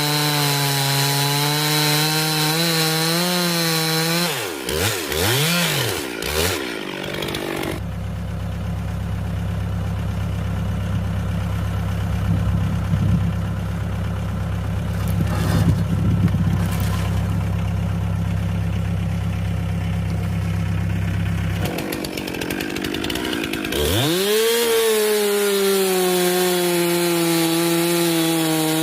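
Gas chainsaw running at high revs and cutting through a log, its pitch wavering under load. It then drops to a steady idle for most of the middle, with a few knocks, and revs back up sharply to cut again near the end.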